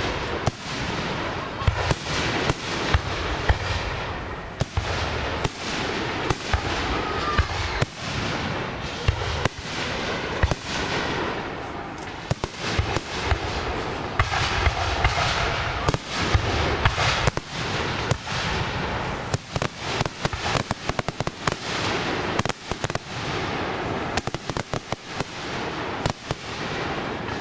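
Professional aerial fireworks display: shells bursting one after another in many sharp bangs of varying loudness, coming in quick dense runs in the second half.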